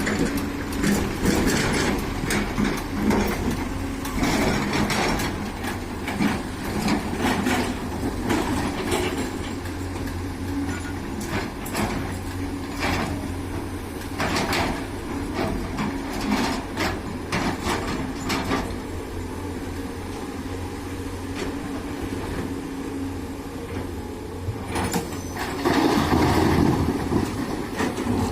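Doosan DX200A excavator's diesel engine running steadily under load while it digs and loads stone-mixed soil, with many knocks and scrapes of rock against the bucket and truck bed. The sound swells louder near the end.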